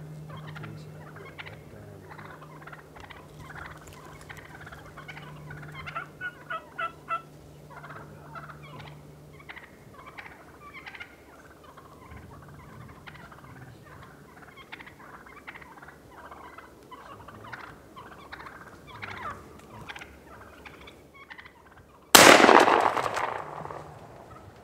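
Wild turkeys clucking and calling at close range, with a run of five quick, loud notes about six seconds in. Near the end comes a single shotgun blast, by far the loudest sound, fading over about two seconds.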